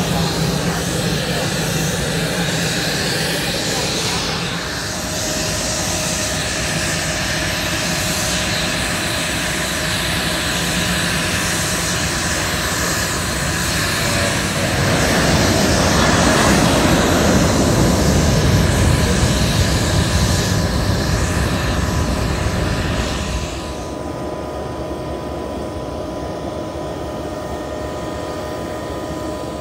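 Airplane engine running steadily. It grows louder through the middle, as if the plane comes close, then drops off suddenly near the end.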